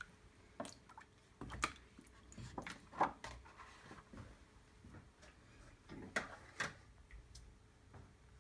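Wet photographic print being lifted out of a tray of blue toner: scattered drips and small splashes of liquid and the slap of wet paper, several times over a few seconds.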